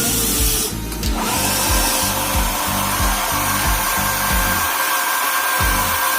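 Steady whine of a remote-control toy vehicle's small electric motor. It breaks off about a second in and resumes at a slightly higher pitch, over background music with a bass line.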